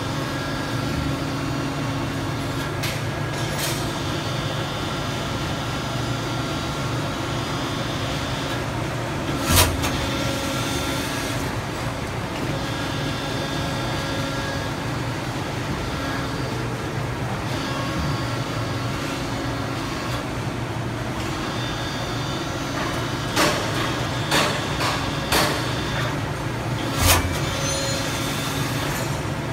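PET preform injection moulding machine running with a steady hum as its toggle clamp opens and closes, the hum's pitch shifting in stages. A loud clunk comes about ten seconds in, and several sharp knocks come near the end.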